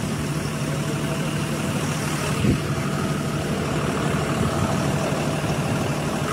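Steady engine hum of a vehicle heard from inside the cabin, with one short knock about two and a half seconds in.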